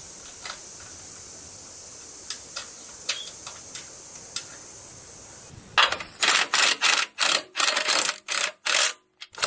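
Ryobi cordless driver tightening mower engine-mount bolts, heard as a quick series of short rattling bursts, about three a second, starting about six seconds in. Before that, a few light clicks over a steady hiss.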